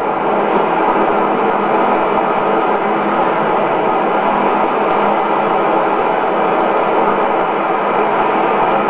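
Steady, unchanging hiss with a faint hum underneath, and no separate events.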